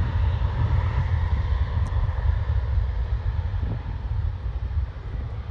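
Distant jet airliner's engines, a steady deep rumble that slowly fades, with a faint whine dying away in the first couple of seconds.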